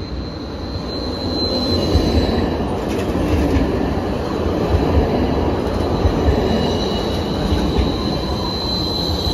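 A catenary-free low-floor tram passing close by, its rolling rumble swelling about a second in and staying loud as the cars go past. A high thin steady whine sounds at the start, fades, and comes back stronger near the end.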